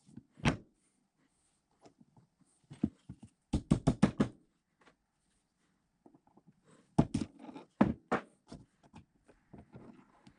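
Sharp knocks as the drill press spindle and its new bearings are tapped down into the quill, with the quill standing on a wooden block. The knocks come singly at first, then as a quick run of five about four seconds in, and as another group about seven to eight seconds in.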